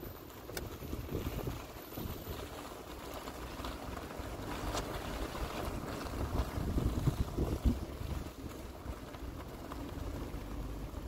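Wind buffeting the microphone over the low road rumble of a moving car, an uneven rumble that swells and fades.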